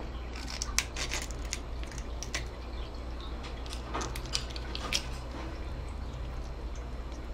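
A knife and fingers cutting and prying at the shell of a raw mantis shrimp, giving scattered small clicks and crackles. They are thickest in the first couple of seconds, with a few more around four to five seconds in, over a steady low hum.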